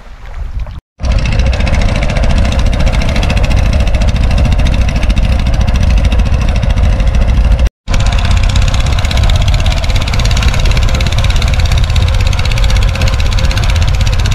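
Small wooden fishing boat's engine running steadily as the boat motors along. It comes in about a second in and breaks off briefly once, just under halfway through.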